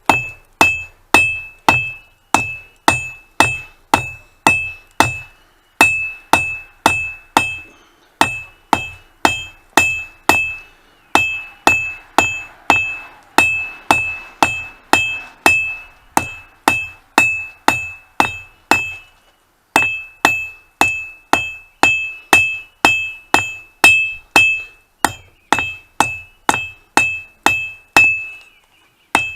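A 3-pound hammer striking hot mild steel on an anvil in steady forging blows, about one and a half a second, each blow ringing briefly. There are a few short pauses between runs of strikes.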